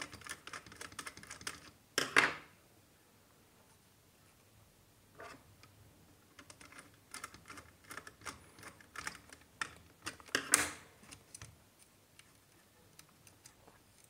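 Small clicks and scrapes of hands and a screwdriver working on a plastic modular switch board, turning brass terminal screws and pressing wires into place. Two louder knocks come about two seconds in and about ten and a half seconds in, with a short quiet stretch after the first.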